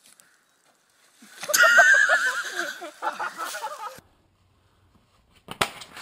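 A person yelling in a high, wavering voice, starting about a second in and cutting off abruptly after about two and a half seconds.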